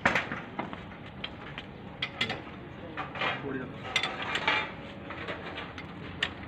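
Steel ring spanners clinking and clicking on bolts at a tractor's front axle, with irregular metallic ticks and short scrapes as the nuts are worked loose.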